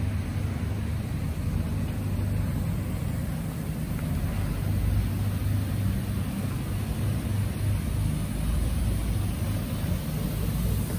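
Heavy diesel machinery running steadily: a low engine rumble.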